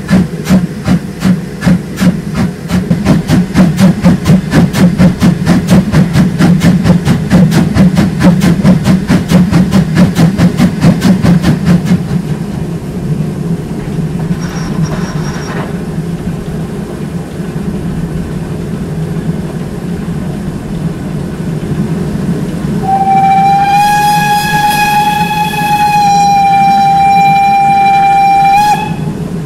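Steam locomotive working along with rapid, even exhaust beats from its chimney, heard close up from the front of the engine; the beats fade into a steadier running noise about twelve seconds in. Near the end its steam whistle sounds one long blast of nearly six seconds.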